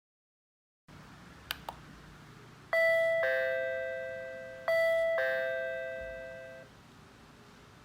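Two short clicks, then a doorbell's indoor chime unit plays a falling two-note "ding-dong" twice, about two seconds apart, each note ringing out and fading.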